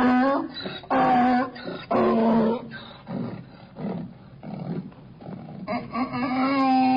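Donkey braying: three loud pitched notes, about a second apart, in the first two and a half seconds, then quieter breathy pulses, then a long loud note starting about six seconds in.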